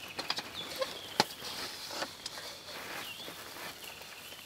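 African bush elephants moving through dry bush: scattered sharp snaps and cracks of twigs and brush, the loudest about a second in. A thin high drawn-out tone runs underneath.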